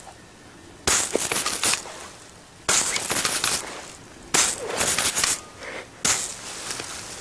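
Four bursts of rapid crackling like machine-gun fire, each about a second long, starting sharply and coming a second and a half to two seconds apart.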